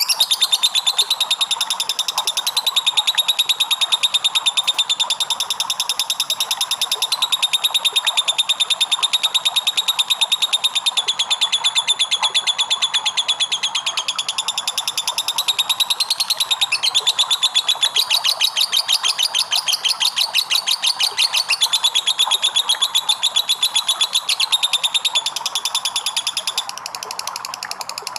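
Lovebird singing its long 'ngekek' chatter: an unbroken, very fast rattling trill of high chirps, easing off near the end.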